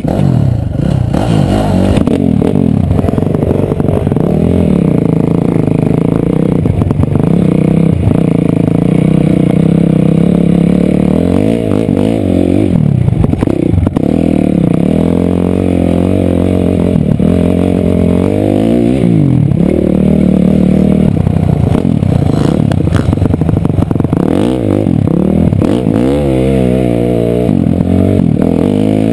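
Dirt bike engine heard close up from the rider's helmet, revving up and dropping back over and over as it accelerates and eases off over the jumps and ruts.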